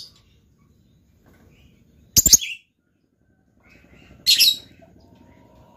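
Lovebird giving two short, high-pitched chirping calls about two seconds apart, the first about two seconds in and the second past the three-quarter mark.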